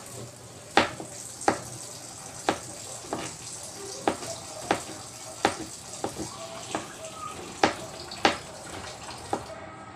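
Kitchen knife chopping garlic cloves on a plastic cutting board: sharp, irregular blade strikes, about one or two a second.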